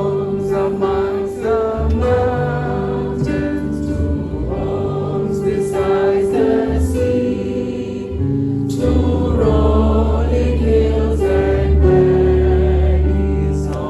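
Gospel music with a choir singing sustained notes over a steady bass line.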